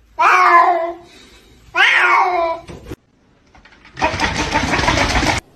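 A cat meowing twice, two long calls that fall in pitch. About four seconds in, a loud rushing noise starts and cuts off suddenly near the end.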